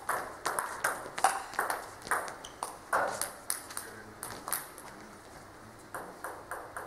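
Table tennis balls clicking, sharp and irregular, about two to three clicks a second as they bounce on tables and bats. The clicks thin out for a moment past the middle and pick up again near the end.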